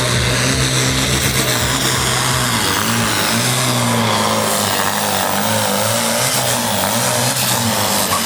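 Diesel engine of a pulling tractor at full throttle, dragging a weight-transfer sled. A loud, steady drone begins to waver up and down about three seconds in as the revs rise and fall under the load.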